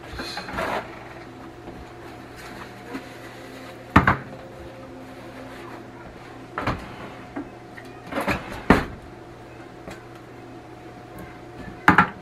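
A handful of separate kitchen knocks and clunks, a few seconds apart, as cans are fetched and handled at the counter, the sharpest about four seconds in and near the end. A steady low hum runs underneath.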